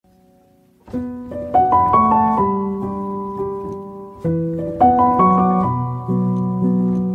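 Slow piano music: struck notes that ring and fade, in two phrases. It begins about a second in.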